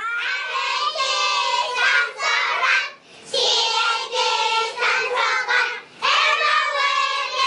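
A group of young children singing together in unison, with short breaks between phrases about three and six seconds in.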